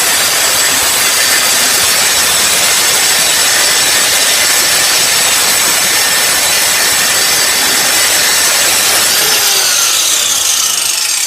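Hyper Tough angle grinder's abrasive disc cutting into a grade 8 steel bolt, a loud steady grinding with a high whine. Near the end the motor's pitch falls as it winds down.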